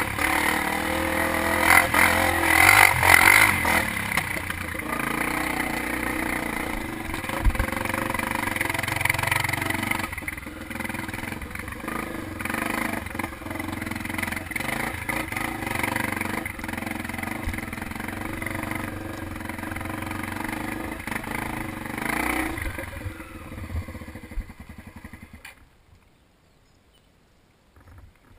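Dirt bike engine running with the throttle opening and closing, loudest in the first few seconds; the engine sound fades away about 25 seconds in.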